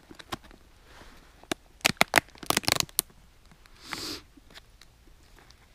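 Plastic items in a first-aid pouch being handled: a run of sharp clicks and rattles as a clear plastic box is opened, then a short rustle about four seconds in.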